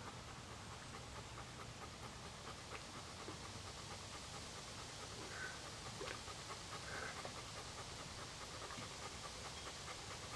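Labrador panting fast and steadily while swimming.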